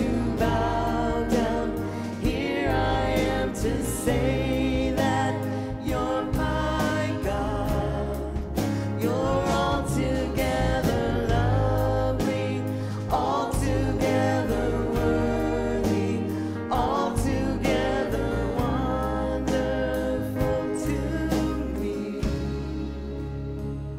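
Christian worship song with singing over a steady beat and sustained bass notes. Near the end the beat drops out and the music quietens.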